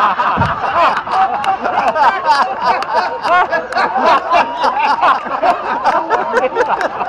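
Audience laughing, many voices overlapping at once.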